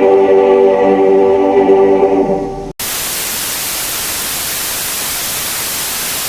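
A held, choir-like musical chord fades out about two and a half seconds in. After a split-second gap, steady white-noise static hisses at an even level and then cuts off abruptly.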